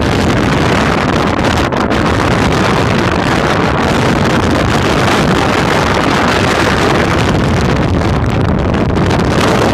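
Loud, steady wind buffeting a phone's microphone held out of the window of a moving car.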